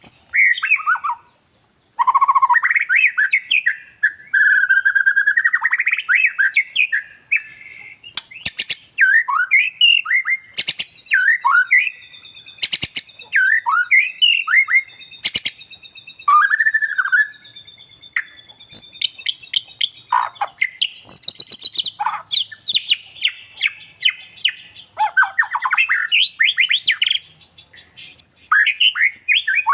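Oriental magpie-robin (kacer) in full song: a loud, varied run of whistles, slurred notes, rapid trills and harsh chatter with only brief pauses. A steady high-pitched whine sits behind it.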